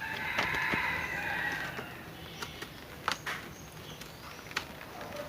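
A rooster crowing once, a long call of about two seconds, followed by a few sharp clicks.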